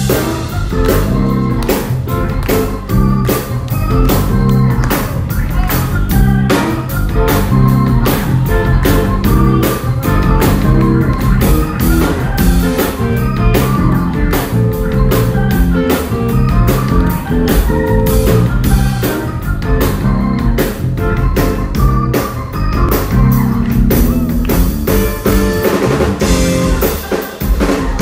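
Blues-rock music with electric guitar and drum kit.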